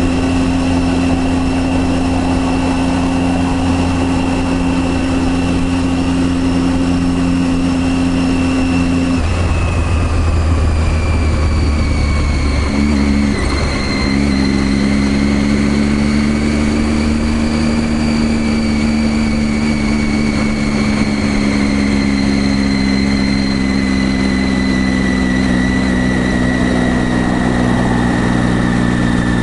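Triumph Daytona 675R's inline three-cylinder engine running steadily under way. Its note drops about nine seconds in and settles on a new steady pitch a few seconds later.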